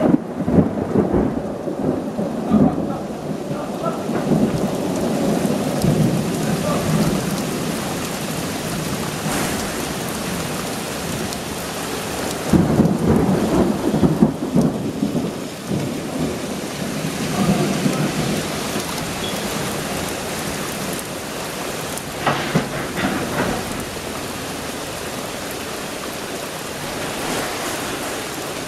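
Thunderstorm: steady rain with rolling thunder. The rumbles swell near the start, again about halfway through, and once more about three-quarters of the way in.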